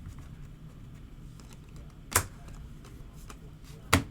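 Two sharp taps, about two seconds in and again near the end, over a low steady hum: baseball cards being handled and set down on a table during pack opening.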